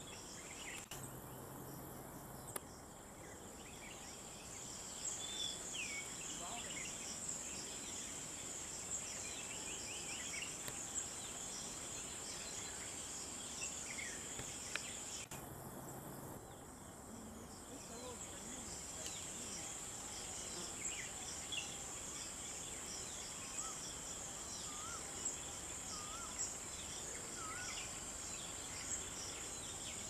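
Steady high-pitched insect trilling, with many short bird chirps and calls scattered over it.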